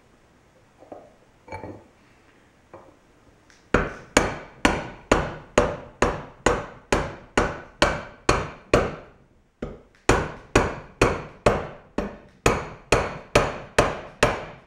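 Rubber mallet striking a metal pipe to drive a new ball bearing onto an electric motor's armature shaft, pressing it down onto its seat. After a few light taps, steady blows come about two a second from about four seconds in, each ringing briefly, with a short pause near ten seconds.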